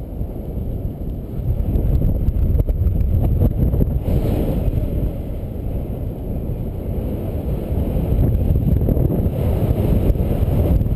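Wind noise from the airflow of paraglider flight buffeting the camera microphone: a continuous low rumble that swells and eases.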